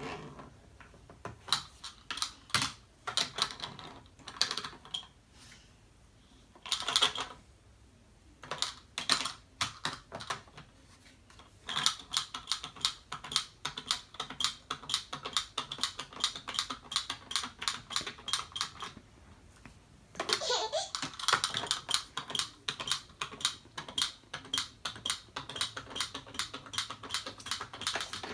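Typing on a computer keyboard: short bursts of key clicks with pauses at first, then long fast runs of typing through most of the second half.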